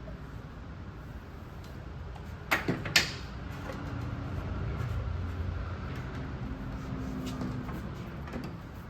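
Three sharp knocks in quick succession, about two and a half to three seconds in, from the swim teaching platform's legs and caps being handled and knocked together while they are fitted. A steady low hum runs underneath.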